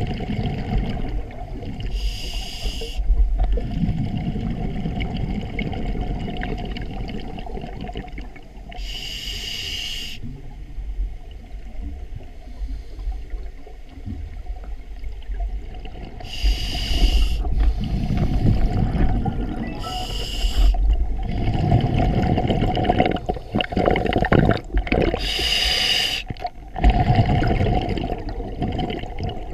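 Scuba diver breathing through a regulator, heard through the camera's underwater housing: five short hissing inhalations, each about a second long, alternate with longer low, rumbling bursts of exhaled bubbles.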